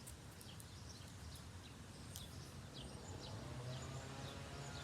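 Outdoor ambience: small birds giving scattered short, high chirps over a low, steady background hum. The siren is not sounding.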